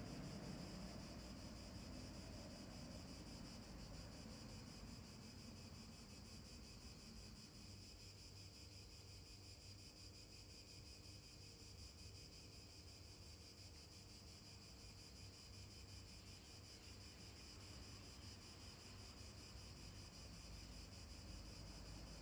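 Near silence: faint outdoor ambience with a steady high-pitched hiss and a low rumble.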